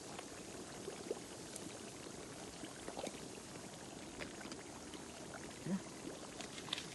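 Water of a natural hot spring stream flowing and bubbling: a steady hiss with small scattered clicks and splashes.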